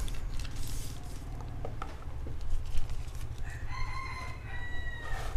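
A rooster crowing once, a single long call lasting under two seconds in the second half, over a steady low hum and a few light taps.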